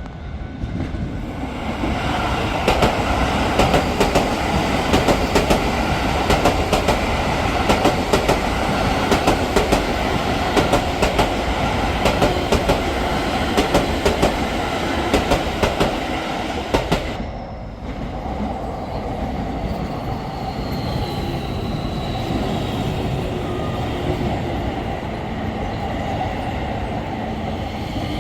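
Keio Line electric train passing close by: a rapid clatter of wheels over rail joints for most of the first 17 seconds. After a brief dip it goes on as a steadier running sound with a faint falling whine near the end.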